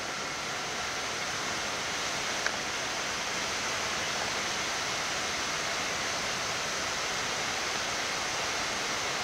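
Steady rushing airflow noise on the flight deck of a Boeing 787-8 climbing after takeoff, growing a little louder over the first few seconds. There is one faint click about two and a half seconds in.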